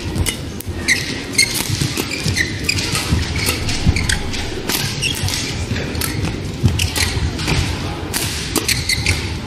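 Badminton doubles rally: rackets striking the shuttlecock with sharp cracks several times a second, with shoes squeaking briefly and feet thudding on the court.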